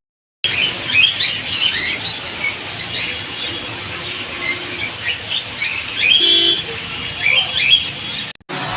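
Many small cage birds chirping at once: a dense mix of short, high, overlapping calls over steady background noise.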